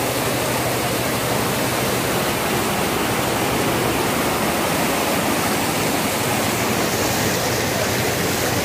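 Floodwater rushing and churning fast down a street in a steady, unbroken rush of water.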